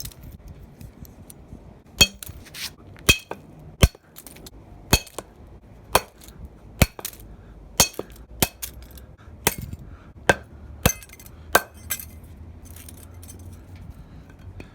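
A bat repeatedly striking the remains of a broken alarm clock: about a dozen sharp clinking hits, roughly one a second, which stop near the end.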